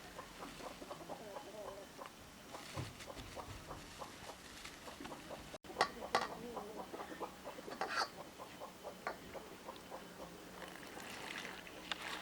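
Poultry clucking: short calls repeated in quick runs, broken by a sudden cut about halfway through.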